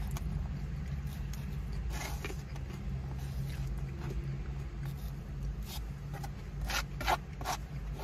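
Plastic fork scraping and scooping food in a foam takeout container: a few short scrapes, with a quick cluster of them near the end. A steady low hum sits underneath, inside the car.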